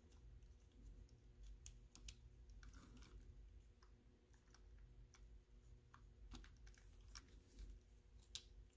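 Near silence: faint, scattered light clicks of the small plastic chassis of a toy steam locomotive being handled, over a low steady hum.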